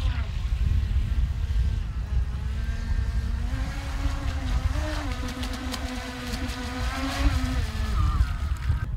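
Electric whine of a radio-controlled jet boat's 600-watt water-cooled brushless inrunner motor. The pitch rises about three and a half seconds in, holds steady, then drops near the end as the throttle comes off, over a constant low rumble of wind on the microphone.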